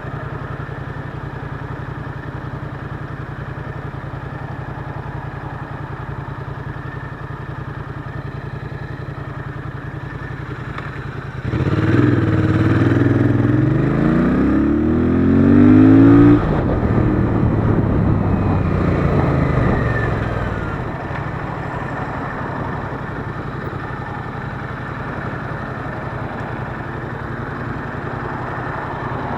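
Royal Enfield Interceptor 650's parallel-twin engine running steadily at low revs. A bit over a third of the way in it is opened up and gets louder, its note rising as the bike accelerates, then it cuts off suddenly about halfway through. The note falls away and settles back to a steady low run.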